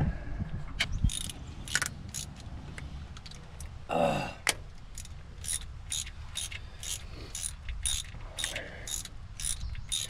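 Hand ratchet wrench clicking as the motor-mount bolts are worked loose: a steady run of single sharp clicks, about two to three a second, through the second half.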